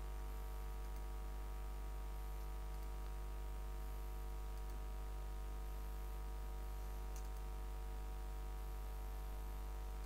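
Steady low electrical hum and faint hiss, with a few faint mouse clicks.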